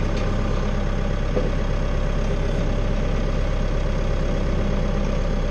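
Tractor engine idling steadily with an even low hum.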